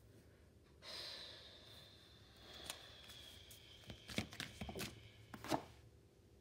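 A deck of oracle cards being handled and shuffled by hand: a soft rush about a second in, then a cluster of sharp card taps and slaps in the second half.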